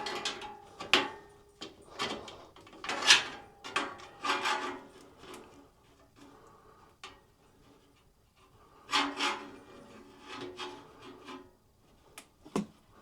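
Scraping and rubbing against a wooden shelf as something is slid and shifted into place, in several uneven bursts, with a quiet spell in the middle.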